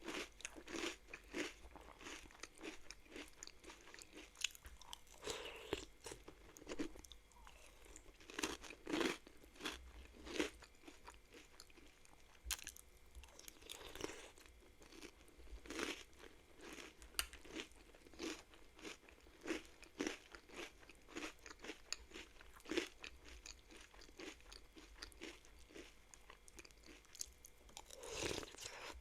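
Close-miked crunching and chewing of crunchy chocolate cereal: many short, sharp crunches one after another throughout, with no regular rhythm.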